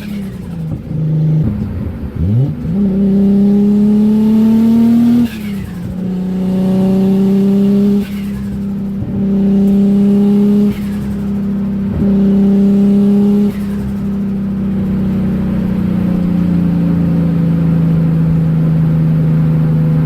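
Single-turbo Nissan RB26 twin-cam straight-six, run without a muffler, pulling in short part-throttle bursts that rise in pitch. Each burst cuts off with turbo flutter as the throttle closes, about four times. After that the engine settles to a steady, lower drone.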